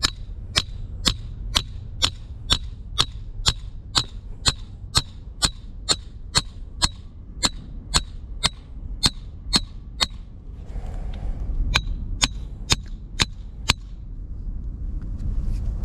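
Hammer driving a bank rod holder's stake into the ground: steady blows about two a second, each with a bright ring, a short pause about ten seconds in, then five more blows.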